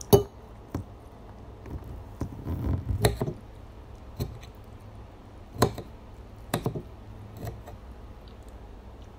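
Metal fork and spoon clinking and scraping on a plate of fried noodles, eight or so separate clinks, the loudest at the very start. Soft mouth sounds of eating noodles come between them, densest around two to three seconds in.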